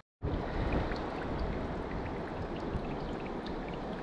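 Mineral spring water running in a thin flow over travertine: a steady rushing trickle with small splashes, with some wind on the microphone underneath.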